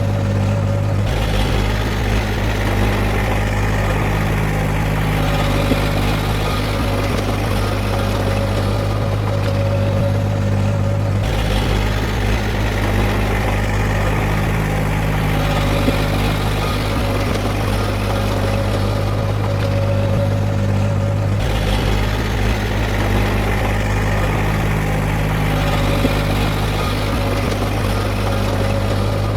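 Heavy diesel earthmoving machinery running with a steady low drone. Its tone shifts slightly about every ten seconds.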